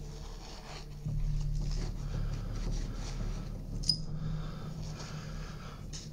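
Gloved hands scraping and rubbing against a dark slab and the gritty, dusty floor, with one sharp click about four seconds in. A low steady hum sits underneath.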